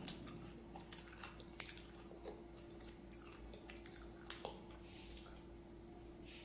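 A person chewing and biting roti pizza close to the microphone: small wet clicks and crackles scattered irregularly, over a faint steady hum.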